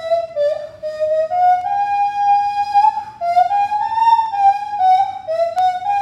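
Nose flute playing a melody: a single line of short notes stepping up and down, with slight slides between some pitches.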